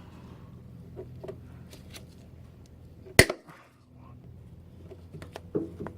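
A hand tool working at an old metal hose clip on a fuel line: light metallic clicks and scrapes, then one sharp, loud snap about three seconds in as the tool lets go of or bites the clip.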